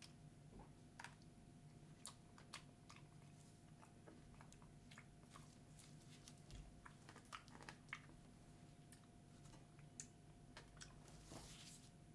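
Faint scattered small clicks and light taps, a dozen or more at uneven intervals, from gloved hands and a spatula handled around a steel ice-pan plate, over a faint steady hum.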